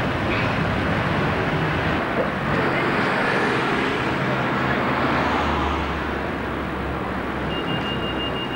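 Road traffic: cars running along a street as a steady mix of engine and tyre noise. A thin, steady high tone comes in near the end.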